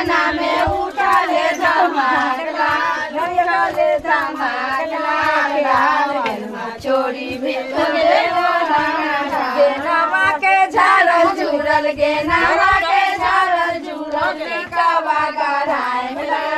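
A group of women singing a folk wedding song together, many voices overlapping at a loud, steady level.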